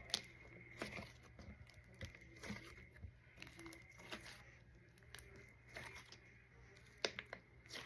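Soft fluffy slime, made with shaving cream, being squished and stretched by hand, giving faint, irregular sticky crackles and small pops.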